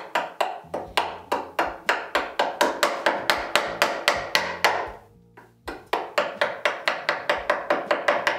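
Mallet striking a chisel as it cuts into the wood, in quick light taps about four a second, with a brief pause about five seconds in before the tapping resumes.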